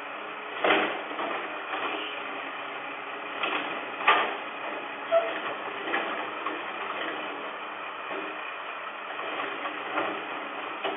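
Garbage truck at work in the street: a steady mechanical running sound broken by loud metallic clanks and bangs, the loudest about a second in and others around four and five seconds in. Heard through a doorbell camera's small microphone, which cuts off the high end.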